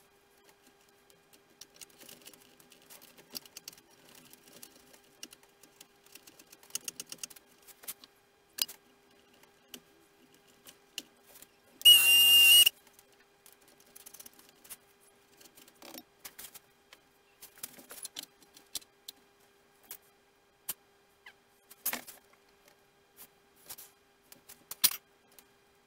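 Speeded-up workbench handling of small model parts and tools: a scatter of quick light clicks, taps and rattles over a faint steady hum, with one short loud high beep about halfway through.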